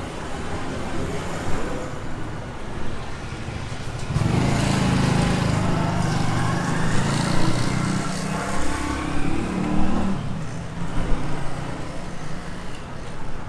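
Street traffic, with a road vehicle's engine passing close by from about four seconds in, louder for several seconds with a slightly rising pitch before it fades back into the traffic noise.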